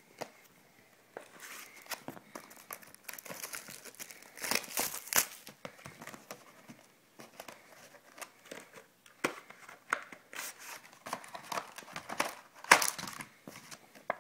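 Plastic wrapping on a sealed box of hockey trading cards crinkling and tearing as it is opened, in irregular crackles with louder rips about five seconds in and near the end.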